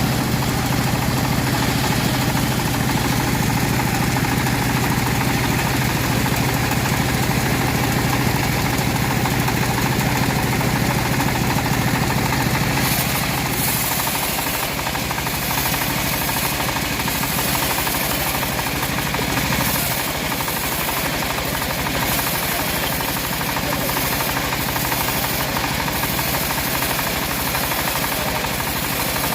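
Chainsaw running under load as it rips lengthwise through a teak log, a steady buzzing drone; about halfway through, the low hum drops away and a harsher high cutting hiss takes over.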